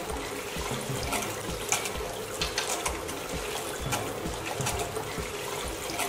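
Water poured from a plastic jug splashing and trickling steadily into a small water-filled basin.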